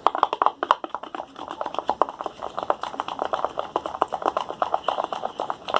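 Slime being stirred in a container with a utensil: fast, uneven sticky clicking, several clicks a second.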